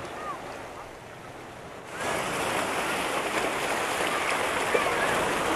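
Small sea waves washing and splashing over shoreline rocks. The rushing noise steps up suddenly about two seconds in and then holds steady.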